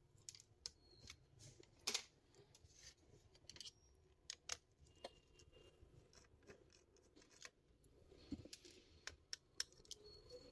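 Faint, scattered clicks and light scraping of a screwdriver and small parts as a laptop is taken apart, with a few sharper clicks among them.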